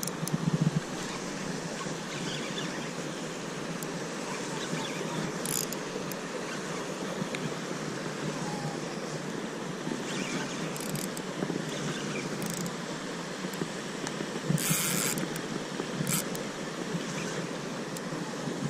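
Steady rushing noise of wind on the microphone, with a few brief high rustles.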